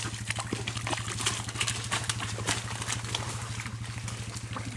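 An ATV engine running steadily at idle with an even low throb. Over it come repeated splashes and sloshing of mud and water as a quad is pushed through a mud hole.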